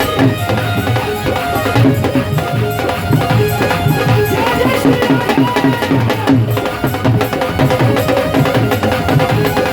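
Instrumental passage of Hindi devotional bhajan music: steady rhythmic drumming under a melody line, with no singing.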